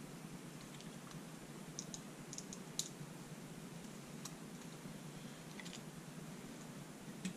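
Scattered faint clicks of small metal lock parts, the pins and springs of a gutted lock cylinder being handled and taken out, with a sharper click about three seconds in and a few more near the end.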